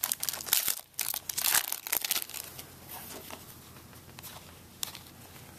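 Foil wrapper of a Topps Prime football card pack being torn open and crinkled, sharp crackling through the first two and a half seconds, then quieter handling with one last crackle near the end.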